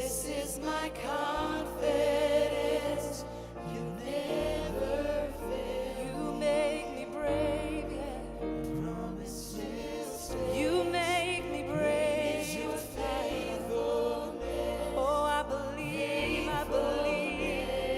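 Live gospel worship music: voices singing long notes with vibrato over sustained low bass chords that change every few seconds.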